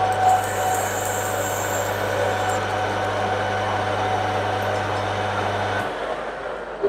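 Metal lathe running while facing off the end of a metal bar, the tool's cut fading within the first couple of seconds. About six seconds in the motor hum cuts out and the spindle winds down, with a short knock near the end.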